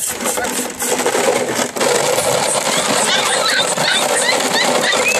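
Empty plastic bottles and jugs clattering and crinkling as Belgian Malinois puppies scramble through a tub full of them, with short high squeaks starting about three seconds in.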